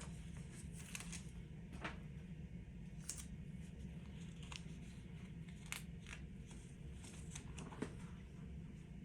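Faint rustling and scattered light clicks, as of things being handled, over a low steady room hum.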